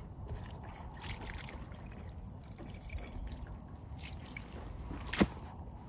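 Water dripping and trickling, with one sharp click about five seconds in.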